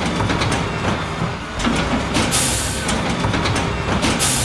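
Cartoon sound effects: a low mechanical rumble with rapid clattering clicks, cut by a short hissing whoosh about two and a half seconds in and another near the end.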